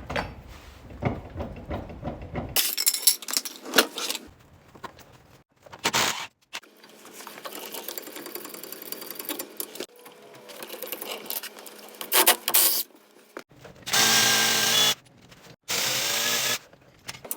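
Clanks and rattles of metal parts being handled. Near the end comes a loud motor-driven tool in two short runs: about a second, then about half a second.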